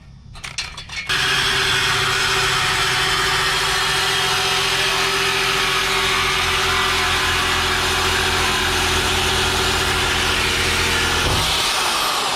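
Power saw cutting through the steel exhaust pipe: a few clicks, then the saw starts about a second in, runs at a steady pitch for about ten seconds and stops near the end as the pipe is cut through.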